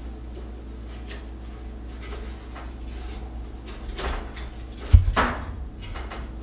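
Hands working the plastic wire-harness plugs on a stove's infinite (element control) switch: small plastic clicks and scrapes, then a louder knock and scrape about five seconds in as a plug comes off the switch.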